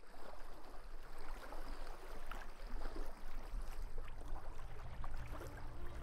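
Small waves lapping and sloshing in open water: a steady, irregular wash with faint splashes.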